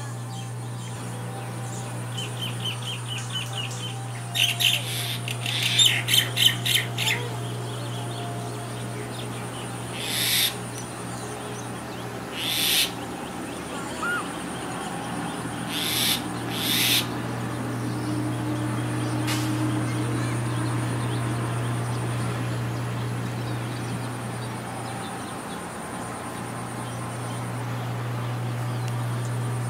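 Small mongoose calling from a wire cage. First a run of quick high chirps, then a louder burst of rapid chattering calls, then a few single short high squeaks spaced a few seconds apart. A steady low hum runs underneath.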